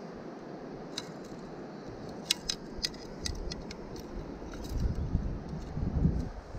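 Steady river flow, with a scatter of light metallic clicks and clinks from handling fishing gear (spinning rod and reel, aluminium landing net). Low bumping and rumbling from handling near the end.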